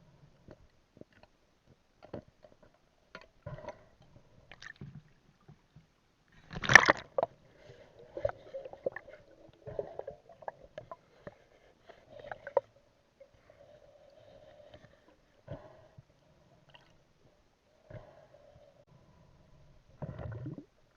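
Water sloshing and gurgling with scattered clicks and knocks, and one loud splash-like burst about seven seconds in.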